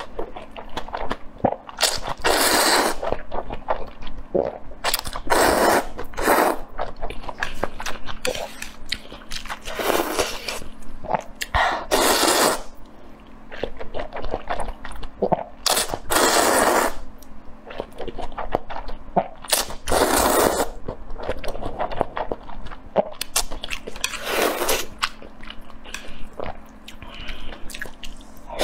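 Close-miked slurping of noodles: loud sucking slurps every few seconds, with wet chewing and small mouth clicks between them.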